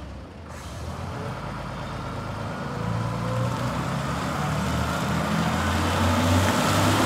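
Engine of a Silverdalens Mekaniska Atlet 6-ton forklift running as the truck drives closer, growing steadily louder, with a faint whine that slides in pitch.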